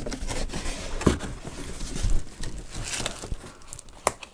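Cardboard packaging being handled and lifted out of a box: rubbing and scraping of cardboard, with a few light knocks about a second in, at two seconds, and near the end.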